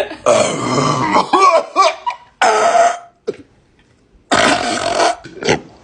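A person burping loudly several times after gulping carbonated Sprite: a long burp that wavers in pitch, then shorter ones, with a quiet gap of about a second near the middle.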